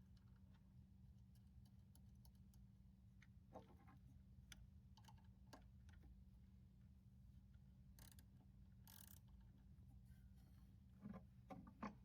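Near silence: a faint steady hum with scattered light clicks and ticks, a couple of brief soft hisses partway through, and a few slightly louder clicks near the end.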